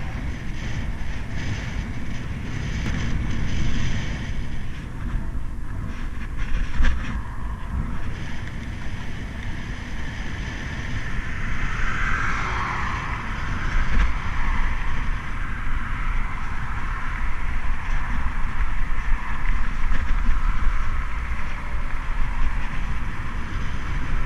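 Wind rushing over the camera microphone together with the rumble of mountain-bike tyres rolling over tarmac and a gravel track. The noise is steady, with a brighter rush about halfway through.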